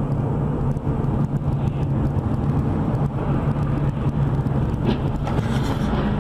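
Steady engine and road noise of a moving vehicle: a constant low drone.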